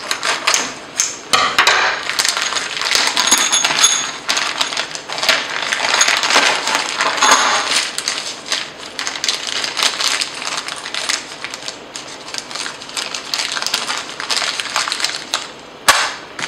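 Paper and plastic wrapping crinkling as a bundle of mounting hardware is unwrapped, with small metal nuts and bolts clinking against each other and on the metal flashing plate. A sharp click near the end as a nut is set down on the flashing.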